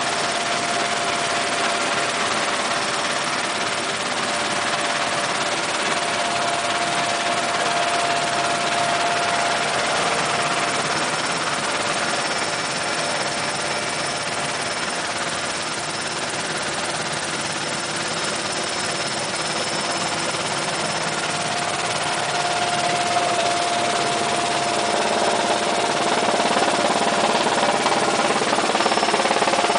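Sikorsky S-61N helicopter heard from inside the cockpit in flight: the steady drone of its twin turboshaft engines and rotor drive, with a constant mid-pitched whine over the noise and a faint high whine above it. It grows slightly louder over the last several seconds.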